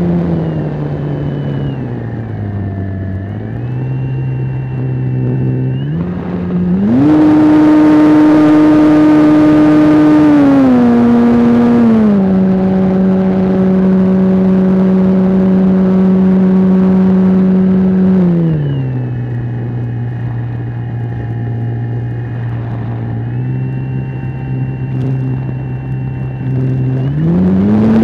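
Radio-controlled T-28 model airplane's engine and propeller heard from on board, the pitch changing in steps with the throttle: low at first, opening up about 7 s in with a rush of air, easing back in two steps around 11 and 18 s, then rising again near the end.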